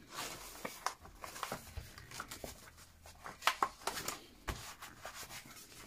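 Paper booklets and a notebook cover being handled as a booklet is tucked under an elastic band: irregular rustling with scattered soft taps and clicks.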